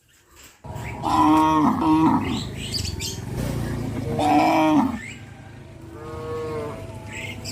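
Cattle mooing, with loud drawn-out calls about a second in and again midway, then softer moos near the end.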